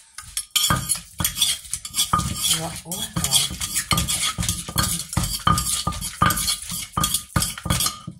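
Wooden pestle pounding in a terracotta mortar, quick repeated strokes about two to three a second, loud, with a metal spoon in the mortar clinking against it on many strokes.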